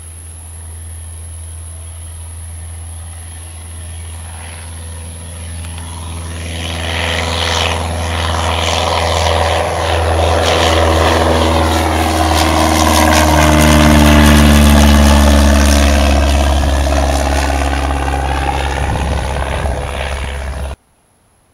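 Cessna 172's piston engine and propeller flying low past and overhead: the engine drone grows steadily louder, is loudest about 14 seconds in as the plane passes, and its pitch drops as it moves away. The sound cuts off abruptly near the end.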